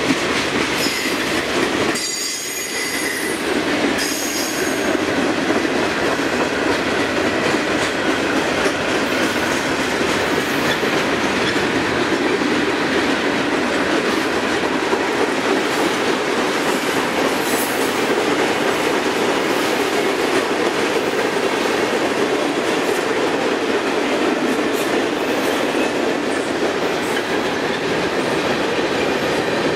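Freight cars of a long CSX mixed freight train rolling past at speed: a steady rumble and clatter of steel wheels on rail, with a faint high wheel squeal at times.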